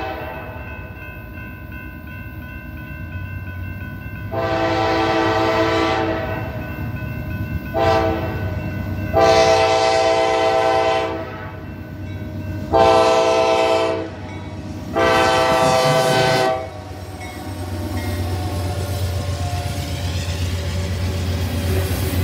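Kansas City Southern diesel freight locomotive's air horn sounding for a grade crossing in five blasts: long, short, then three longer ones. After the last blast, the locomotive's engine rumbles and the loaded ethanol tank cars clatter past on the rails.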